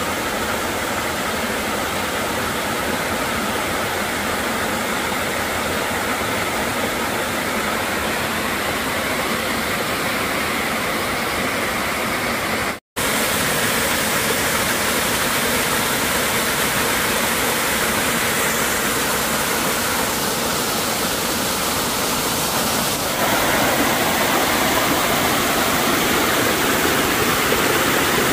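Steady rushing of rain-swollen stream water, then a small waterfall pouring over rocks in full flood after heavy rain, where it normally only trickles. The sound cuts out for an instant about halfway through and gets a little louder near the end.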